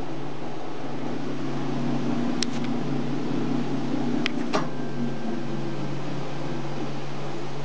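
A 60-quart Hobart commercial mixer running, its motor giving a steady hum as the beater turns in the bowl. A few sharp metallic clicks come in two groups, about two and a half and four and a half seconds in.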